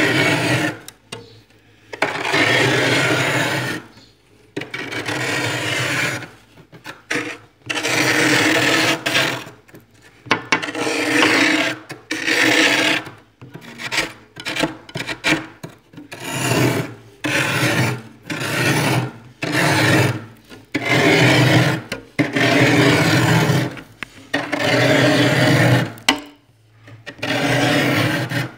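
Metal spoon scraping thick built-up frost inside a freezer, in repeated rasping strokes of one to two seconds each, about one every two seconds with short pauses between.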